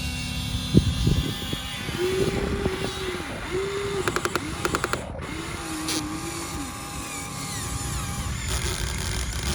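Radio-controlled model excavator's small electric hydraulic pump whining in short spells, its pitch rising and dipping as it works, with a sharp knock about a second in and a run of clicks a little past the middle.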